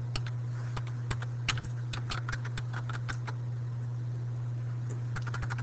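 Typing on a computer keyboard: irregular key clicks that pause for a second or so past the middle, then a quick flurry near the end, over a steady low hum.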